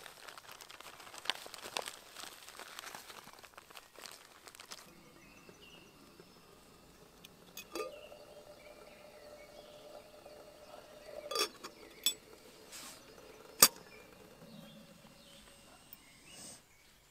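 Plastic food bag crinkling as dry food is poured into a plastic bowl, then a few sharp metal clinks from a camping kettle's lid and body on a small gas canister stove.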